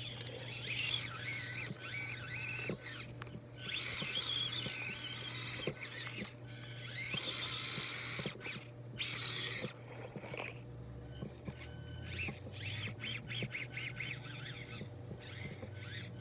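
Axial SCX24 1/24-scale RC crawler's small electric motor and gearbox whining high as the truck crawls, in stretches of a second or a few seconds. Over the last few seconds the whine drops away to scattered ticks and clicks as the tyres pick over rocks.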